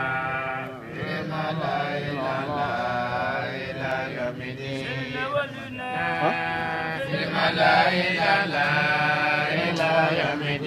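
Quran recitation chanted in long, drawn-out notes that bend from one pitch to the next, without a break.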